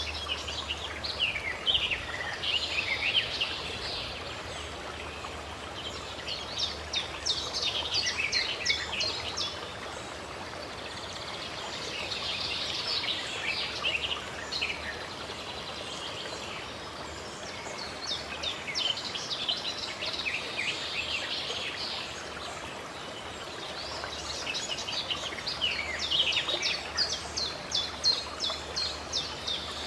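Songbirds chirping in bouts of quick, high chirps that come back about every six seconds, over the steady rush of running water from a spring.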